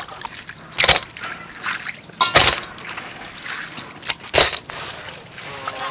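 Water sloshing and splashing in a steel basin as hands stir and rinse live crabs, with a few sharp knocks and splashes of crabs against the metal.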